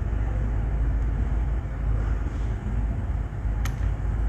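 Steady low background rumble with no speech, and a single sharp click about three and a half seconds in.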